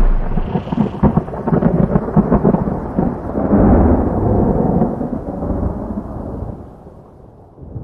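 Thunder rumbling and crackling, then fading away over the last couple of seconds.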